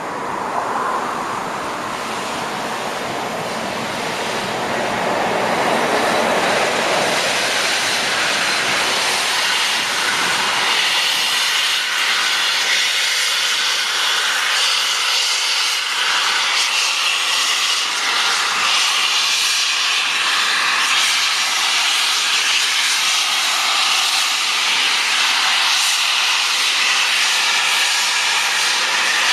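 Steam escaping with a loud, continuous hiss from 60163 Tornado, a Peppercorn A1 Pacific steam locomotive. The hiss builds over the first several seconds, then holds steady while a lower rumble underneath dies away.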